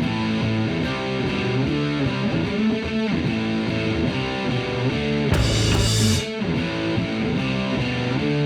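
Rock music led by electric guitar, with a loud crash of noise about five and a half seconds in.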